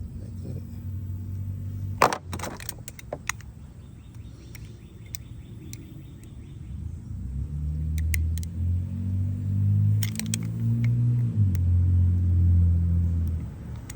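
A motor vehicle engine running, its pitch stepping up and down and growing louder in the second half, with sharp metallic clicks and rattles of hand tools, loudest about two seconds in.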